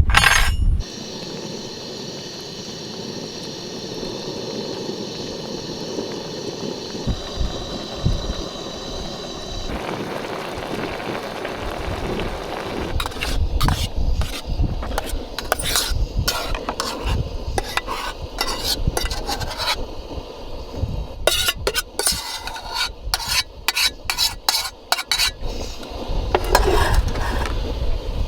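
Food sizzling in a camping pan, then a utensil stirring it, with quick clinks and scrapes against the pan from about halfway through.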